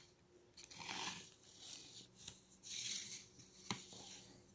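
Faint handling sounds as vinyl figures on clear plastic stands are moved by hand on a desk: soft rubbing swishes, and one light click about three and a half seconds in.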